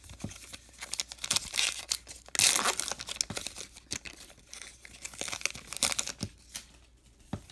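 A baseball card pack wrapper being torn open and crinkled by hand, with a run of small clicks and rustles and the loudest tearing burst about two and a half seconds in.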